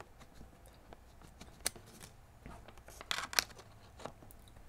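Faint handling noise: a sharp click about one and a half seconds in, then a short cluster of scratchy clicks and rustling around three seconds in, over a low steady hum.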